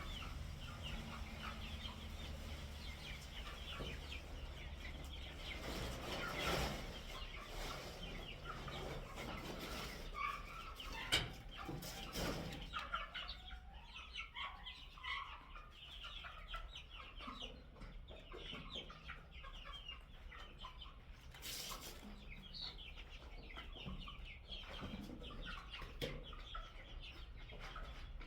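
Chickens clucking, with many short calls throughout, and a sharp knock about eleven seconds in.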